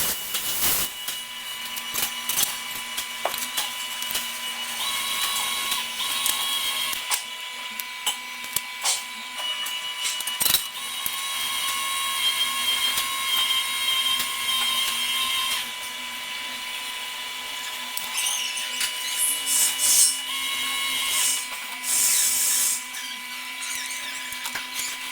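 TIG welding arc on stainless steel: a steady hiss with a high electrical whine that changes pitch in several stretches of a few seconds, with scattered sharp clicks.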